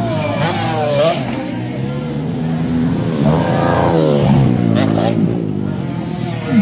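Dirt bike engines revving hard on a motocross track, the pitch climbing and dropping sharply as the riders work the throttle over the jumps, with the strongest swings about halfway through.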